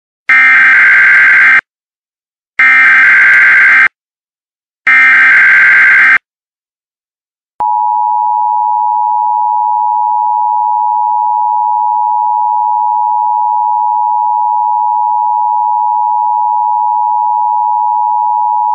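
Emergency broadcast alert signal: three harsh, screeching digital data bursts of about a second each, then after a short gap the steady two-tone attention signal, a high dual tone held unbroken for about eleven seconds.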